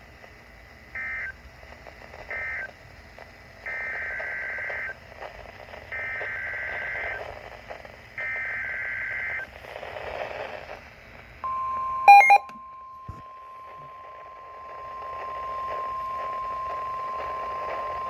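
NOAA Weather Radio EAS data bursts, a harsh two-tone digital screech. Two short end-of-message bursts of the previous alert come first, then three longer header bursts announcing the next severe thunderstorm warning. About 11 s in, the steady single-pitch weather radio alert tone starts and holds to the end, broken about a second in by a loud click, over faint radio hiss.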